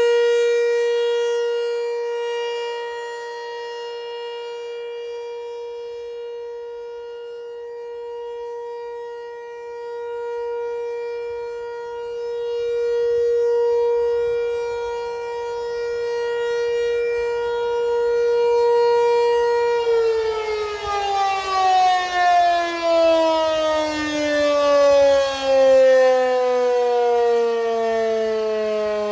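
ASC T-128 outdoor warning siren sounding a steady single-tone alert, its loudness swelling and fading slowly as the siren rotates. About twenty seconds in, the siren is shut off and its pitch falls steadily as it winds down at the end of the test alert.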